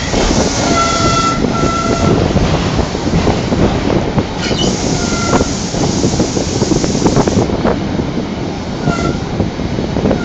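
Sleeper train coaches running along the track, a steady loud rumble of wheels on rail with scattered clicks. Short, high wheel squeals come several times, mostly in the first two seconds and again around five and nine seconds in.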